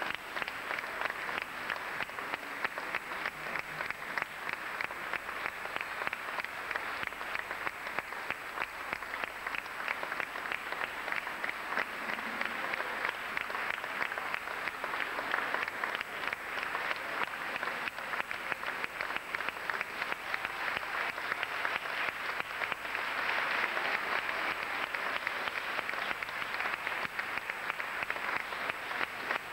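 Audience applause: dense, continuous clapping from a full hall, holding steady throughout.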